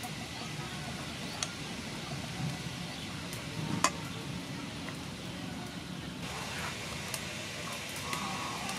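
Metal spoon scooping and pressing chopped pork-and-shrimp filling in a stainless steel bowl, with a few light clinks of the spoon against the bowl, the sharpest about four seconds in, over a steady background hiss.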